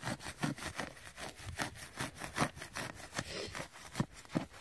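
Hand digging tool chopping and scraping into soil and dry grass roots in a quick, uneven series of crunching strokes, digging down after a deep metal-detector target.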